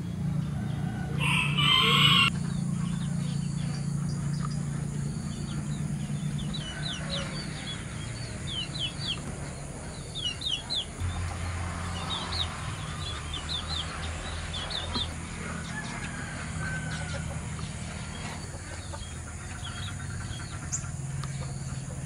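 A rooster crows once, about a second in, the loudest sound here. Small birds then chirp in quick short calls, over a steady low hum.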